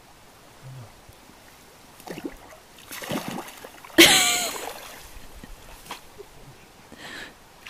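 Hands plunging into a shallow stream grabbing at a fish, with small splashes and then one sharp splash about four seconds in, joined by a brief vocal cry.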